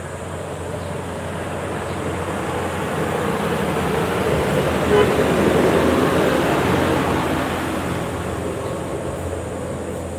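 A light box truck driving past on the road, its engine and tyre noise building to a peak about halfway through and then fading away.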